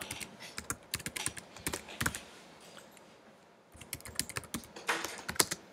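Typing on a computer keyboard: a quick run of key clicks, a pause of about a second and a half midway, then another run of clicks.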